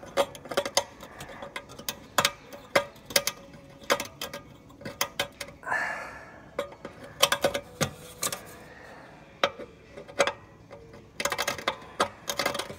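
Small metal hardware being handled and fitted by hand on the tractor's sheet metal: irregular clicks and clinks of a bolt and nut, with a short scrape about six seconds in and a quick run of rapid clicks near the end.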